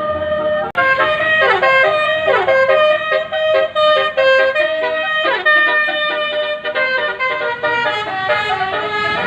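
Bus telolet horn of the basuri type, a multi-tone musical air horn, playing a melody in stepped notes with several quick downward swoops in pitch. It is very loud.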